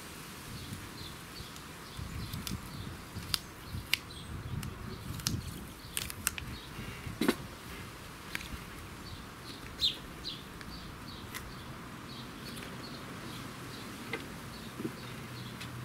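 Scattered small clicks and taps as a lithium-ion lawnmower battery pack and its plastic wrapping are handled, with birds chirping and wind rumbling on the microphone.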